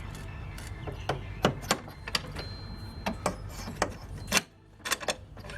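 Irregular sharp metallic clicks and knocks as parts of an adjustable strut bar are handled and fitted into place, over a low steady hum that stops a little past four seconds in.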